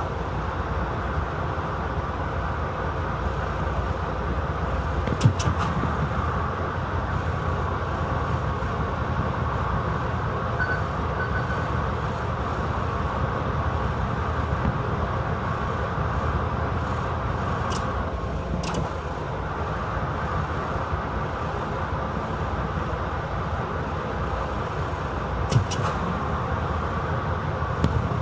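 Diesel shunting locomotive running steadily while moving slowly through the yard: a dense low rumble with a faint steady whine over it. A few short sharp clicks stand out, three times.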